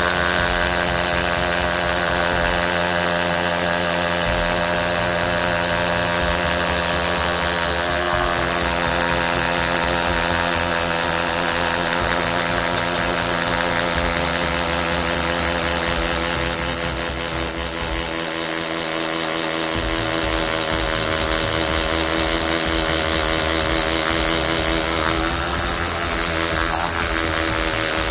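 Tool n Tool GTC-HD18V cordless hammer drill boring steadily into a concrete paving block in first gear, its motor straining under load. It eases off briefly about two-thirds of the way through, then picks up again. The motor is running hot enough to give off a slight burning smell.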